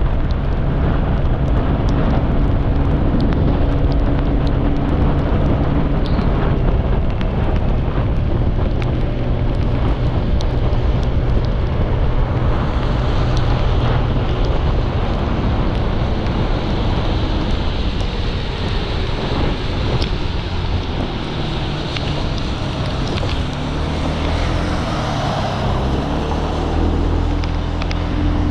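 Honda PCX scooter's single-cylinder engine running at speed under wind buffeting on the helmet microphone, with the hiss of tyres on wet asphalt. The engine note shifts lower in the last few seconds.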